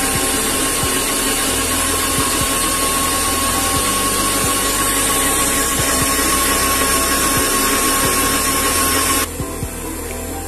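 An electric kitchen appliance motor running steadily with a whine, switched off suddenly about nine seconds in, after which quieter background music is left.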